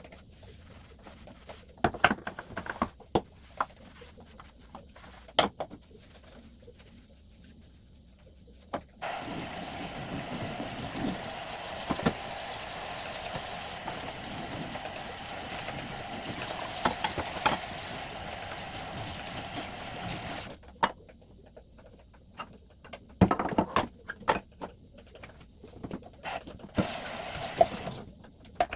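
Water running steadily from a tap for about eleven seconds, in the middle, between scattered knocks and clatter of items being handled and set down.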